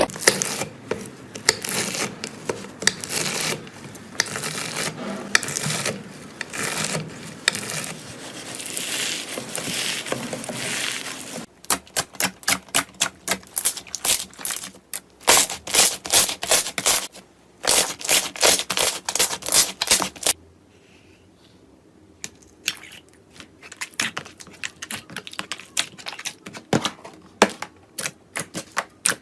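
Slime being squished and pressed by hands, crackling and popping. After about eleven seconds it turns to bursts of rapid sharp clicks. There is a brief lull a little past the two-thirds mark, then scattered clicks and pops.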